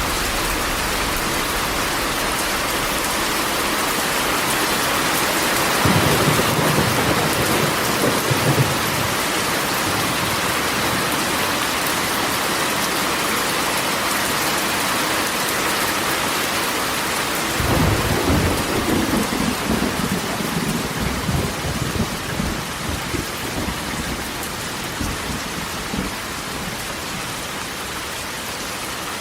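Steady rain falling on a corrugated metal roof, with two rolls of thunder: a short one about six seconds in and a longer one starting suddenly near the middle and fading away.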